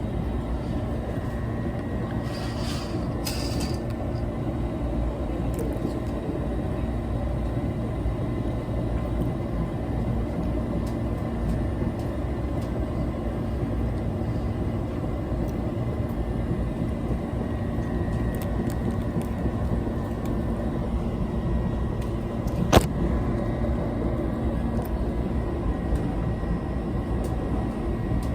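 Steady low rumble of a Mugunghwa-ho passenger train running, heard from inside the carriage, with one sharp knock late on.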